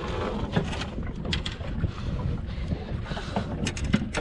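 Wind buffeting the microphone in a steady low rumble, with a few light clicks and knocks.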